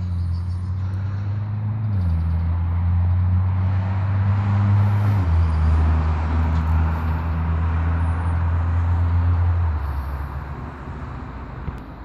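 A motor vehicle's engine running: a steady low hum that drops in pitch twice, with a rushing noise over it, fading out near the end.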